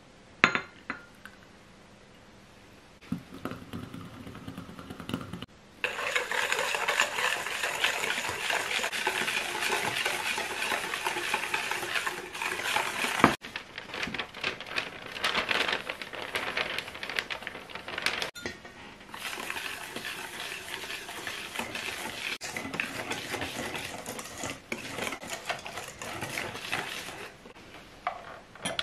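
Wire whisk beating batter in a stainless steel mixing bowl: fast, continuous scraping and clinking that starts about six seconds in and runs in long stretches with a short break. A few light clinks of glassware come before it.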